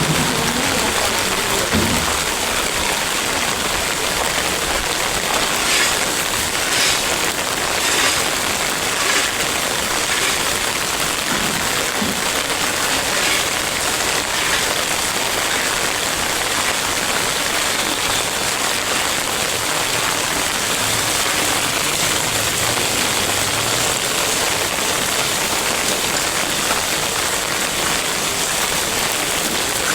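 Heavy rain falling steadily, an even hiss with a few sharper drop taps a few seconds in.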